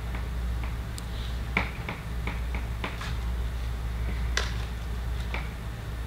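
Chalk tapping and scratching on a blackboard: scattered sharp clicks at uneven intervals, over a steady low hum.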